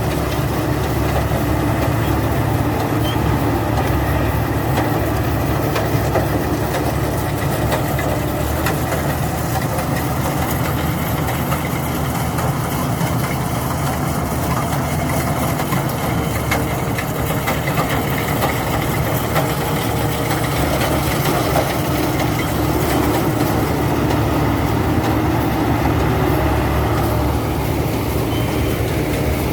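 Rice combine harvester running steadily, its engine and machinery giving a constant, loud mechanical noise.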